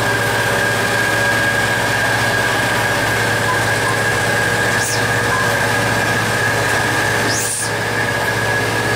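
EMD diesel engine of a GT36HCW (060DS) locomotive running steadily under power as the train accelerates, heard from inside the cab as a constant drone with a steady high whine over it. Two brief high-pitched sweeping sounds cut in about five and seven and a half seconds in.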